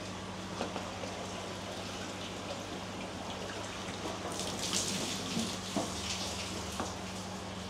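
Water trickling and splashing in a koi pond, over a steady low electrical hum from pond equipment. A brief louder splash comes a little past halfway.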